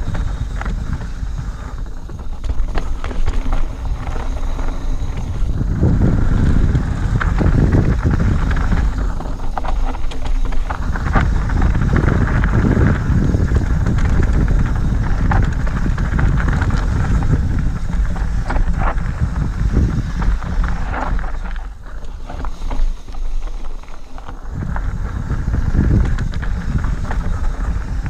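Mountain bike descending a loose gravel and dirt trail: wind buffets the microphone over a steady rumble of tyres on stones, with frequent clicks and knocks from the bike rattling over the rough ground. The noise eases briefly about two-thirds of the way through.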